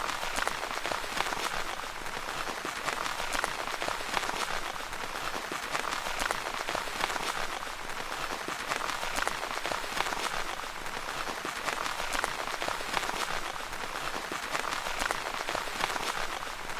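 Steady rain pattering on a tent's fabric, many fine drop taps merging into a dense patter that swells and eases slightly every few seconds.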